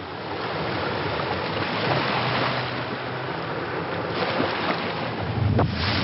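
Sound-design effect of rushing seawater and wind: a loud, steady wash of noise with a low rumble beneath. It swells into a louder surge with a few sharp cracks near the end.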